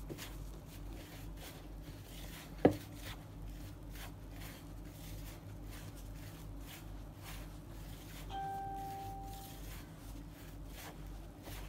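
A hand rubbing oil into maida flour in a bowl: faint, soft rustling strokes, with one sharp click about two and a half seconds in. A brief steady tone sounds for a little over a second past the eight-second mark, over a low steady hum.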